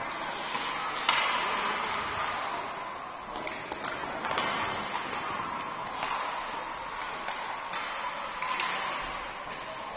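Ice hockey play: skates scraping on the ice, with sharp clacks of sticks and puck every second or two, the loudest about a second in.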